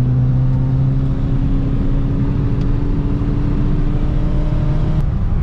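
Car engine heard from inside the cabin on a track lap, pulling steadily in third gear with its note slowly rising over road and tyre rumble. The note changes near the end as the engine eases off.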